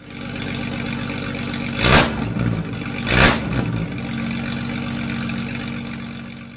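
A vehicle engine running steadily, with two brief loud whooshes about a second apart, near two and three seconds in. The engine fades out near the end.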